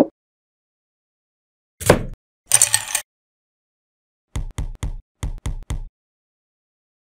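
Stop-motion cooking sound effects: a knife knock on a wooden cutting board, then a thump and a brief clatter of hard plastic pieces, followed by a quick run of about seven short, hard knocks.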